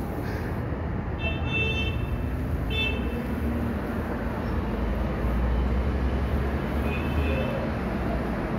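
Steady traffic noise with a low rumble. Three short high-pitched tones cut through it: about a second in, near three seconds in, and about seven seconds in.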